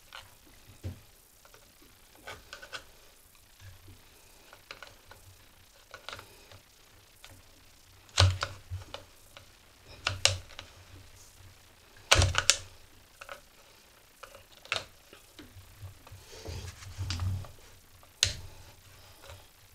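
Screwdriver and small pry bar clicking and scraping against the plastic throttle handle housing of a Homelite weed eater while prying a trigger part loose. The taps come irregularly, with a few louder sharp knocks spread through.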